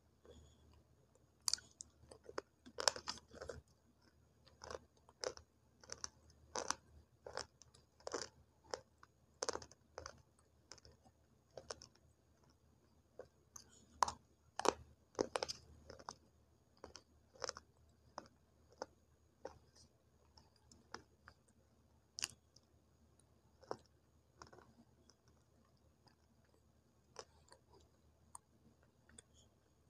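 Crunching and chewing of homemade multani mitti (Fuller's earth clay) sticks: sharp crunches come a second or less apart, then thin out to occasional bites after about 17 seconds.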